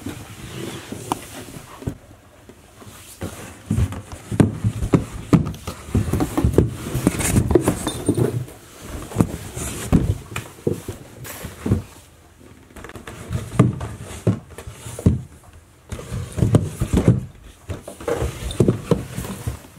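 Cardboard box being shoved along a wooden floor in fits and starts: scraping and bumping in several bouts with short pauses between them.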